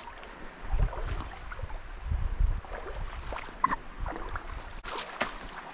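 Footsteps wading through a shallow, stony creek: water sloshing and splashing around the feet at an irregular walking pace, with a few low thuds.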